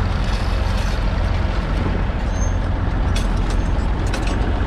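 Massey Ferguson 35X's 2.5-litre three-cylinder diesel engine running steadily under load, pulling a two-furrow mounted plough through the soil. A few short clicks come about three seconds in.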